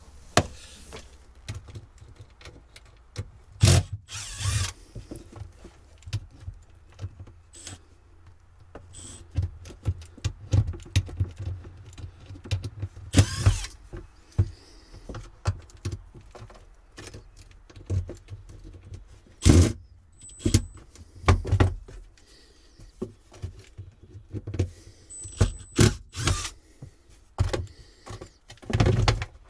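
Irregular clatter of hand work on an old boat's wiring and fittings: sharp knocks, clicks, rattles and short scrapes at uneven intervals, over a faint steady low hum.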